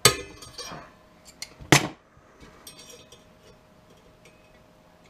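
Two sharp metallic clicks from channel-lock pliers and an Allen key working a set screw on a steel duct booster fan: one right at the start with a brief ring, a louder one a little under two seconds in, then light metal handling.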